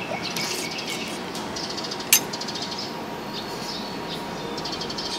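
Steady background ambience at a meal table, with bouts of quick high ticking or chirping and one sharp clink about two seconds in.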